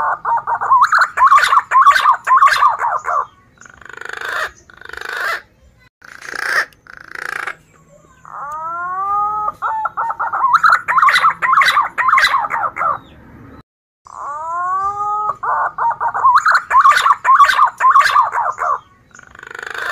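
Male punai daun green pigeon singing. Each phrase is a few rising whistled notes followed by a fast, wavering run of notes, repeated about every seven seconds, with short husky notes in the gaps.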